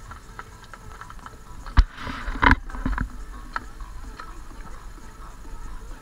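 Irregular clicks and knocks of footsteps on a suspension footbridge, with two louder thumps about two seconds in.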